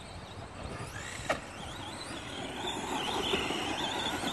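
A radio-controlled off-road truck drives on a gravel and dirt track. Its motor gives a high whine that wavers up and down with the throttle, over the rush of the tyres on the gravel, and it grows louder in the last second and a half. A brief sharp sound comes a little over a second in.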